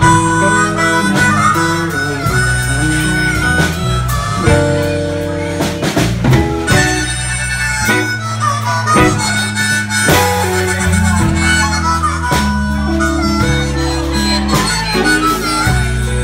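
Blues harmonica solo played cupped into a vocal microphone, over a live band of electric guitar, bass guitar and drums playing a slow blues.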